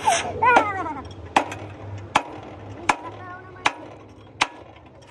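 Sledgehammer striking a steel truck chassis frame at its heated rivets: six sharp metallic blows in a steady rhythm, about one every three quarters of a second.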